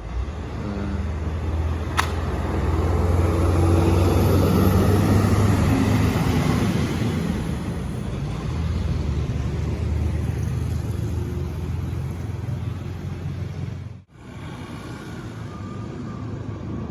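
Intercity bus driving past close by, its diesel engine drone and tyre noise swelling to loudest a few seconds in, then slowly fading. A sharp click about two seconds in. Near the end the sound drops out abruptly and picks up again on quieter road noise.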